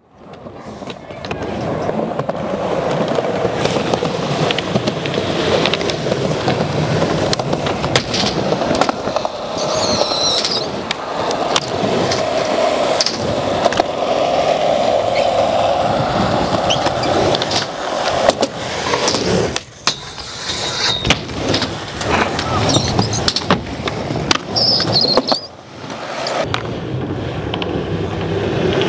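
Skateboard wheels rolling, a steady rumble broken by many sharp clacks and knocks of the board. The rumble drops out briefly twice in the second half.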